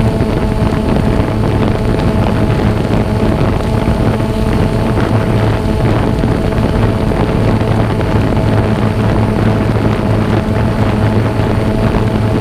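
Xiro Explorer quadcopter's electric motors and propellers humming steadily in flight, a few held tones over a rushing haze, with wind noise mixed in.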